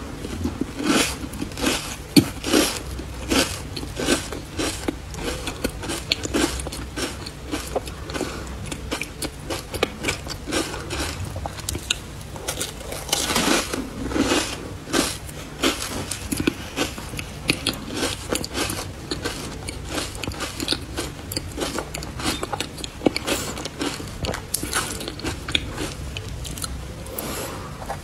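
Close-up crunching and chewing of matcha ice: a dense, irregular run of sharp crunches as the ice is bitten and chewed, with a louder cluster of crunches about halfway through.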